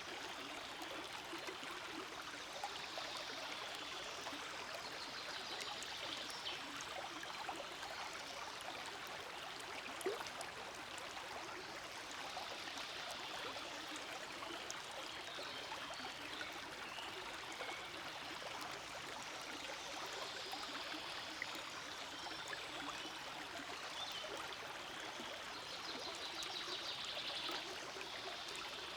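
Forest stream flowing steadily, a continuous rush of water with small trickles, and one brief sharper splash about ten seconds in.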